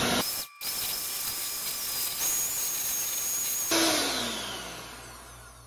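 Electric hand mixer running at speed, beating cake batter in a bowl with a steady high whine. It stops briefly just under half a second in and starts again. Near the end it is switched off and spins down, its pitch falling away.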